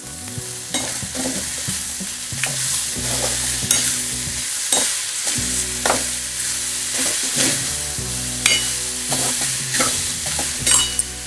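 A steel spoon stirring and scraping sprouted field beans with spices around a stainless steel pan, with repeated scrapes and light clinks over the steady sizzle of the beans frying in oil.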